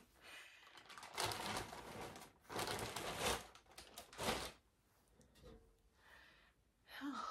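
Crinkling and rustling of handled material in several bursts over the first four and a half seconds, then faint rustles.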